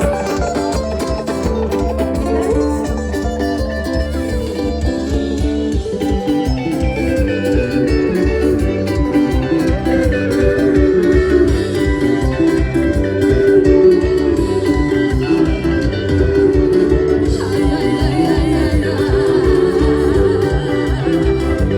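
Live band music with guitar and a steady beat, with singing over it.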